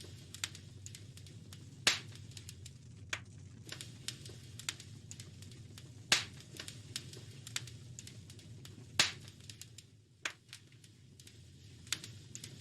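Wood fire crackling in a fireplace: a stream of small crackles and three loud sharp pops, over a low steady rumble.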